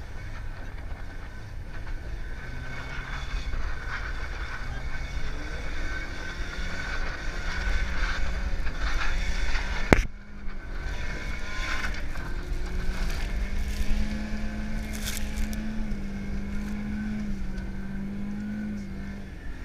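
Car engine heard from inside the cabin while drifting on ice, revving up and down, then held at high revs with small steps in pitch. A sharp click about halfway breaks the sound briefly.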